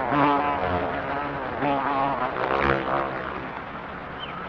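Housefly buzzing in flight, its wing hum wavering in pitch and swelling louder and softer, easing off toward the end.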